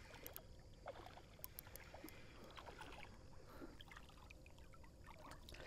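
Near silence: faint lapping and small trickling splashes of river water, with a few light ticks.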